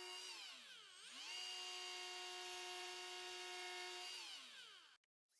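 Die grinder running free at a steady high whine, winding down about half a second in and spinning back up to speed around a second in, then winding down again near the end before the sound cuts off.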